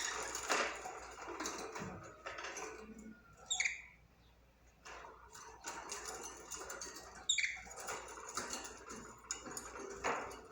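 Budgerigar chattering: a busy, scratchy warble broken by short sharp chirps, two of which stand out about three and a half and seven seconds in.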